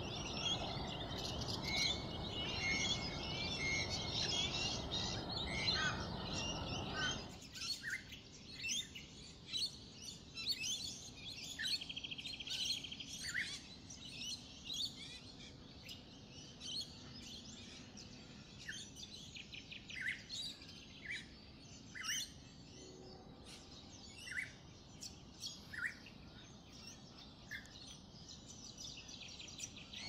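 Wild birds chirping and calling: a dense chorus of small-bird chirps over a steady background hiss, which drops away suddenly about seven seconds in, leaving sparser short chirps and whistled notes.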